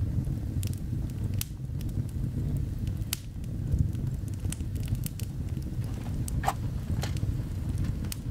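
A steady low rumble with scattered sharp crackles and ticks, the kind of bed heard from rain or a crackling fire.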